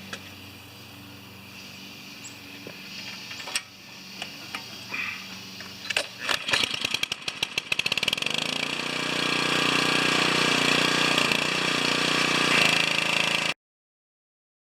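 Pressure washer's 5-horsepower gasoline engine starting up: a fast rattle about six seconds in as it turns over and catches, then running steadily with a loud high hiss while the pump's bypass is tested. The sound cuts off abruptly about a second before the end.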